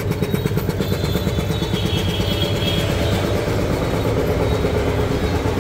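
A 5 HP double-piston air compressor, belt-driven by a single-phase electric motor, running with a steady, fast, even pumping chug.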